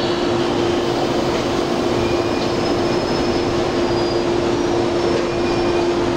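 JNR 103 series electric train's blower running steadily while the train stands ready to depart: a constant hum over a continuous rush of air.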